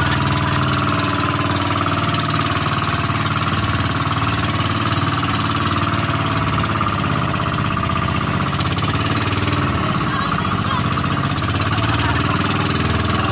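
Engine of a motorized outrigger boat running steadily under way, over the rush of water along the hull.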